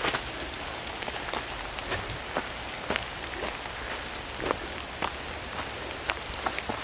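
Steady rain falling on foliage, with irregular sharp taps of drops landing close by.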